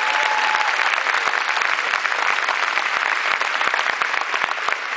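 Large crowd applauding steadily, a dense patter of many hands clapping.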